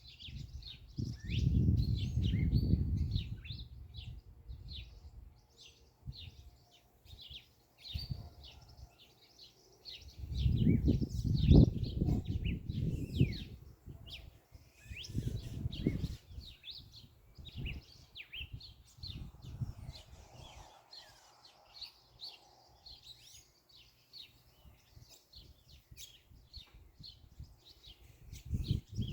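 Many birds chirping and singing together in a dense, continuous chorus of short high calls. Louder bursts of low rumble come and go, about a second in, from about ten to thirteen seconds in, and near the end.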